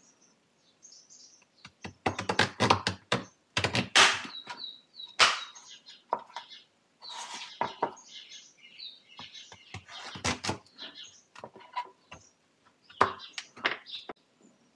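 Kitchen knife cutting through raw sweet potato and knocking on a plastic cutting board: runs of sharp cuts and clacks with short pauses between them.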